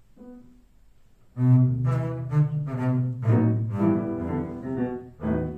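Double bass played with the bow: after a short quiet start, sustained bowed notes come in suddenly about a second and a half in and move from note to note in a melodic line.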